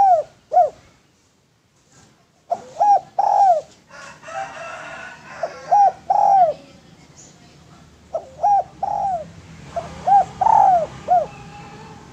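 Spotted dove (derkuku, tekukur) cooing in short phrases of a few arching coos, repeated about every two to three seconds with pauses between.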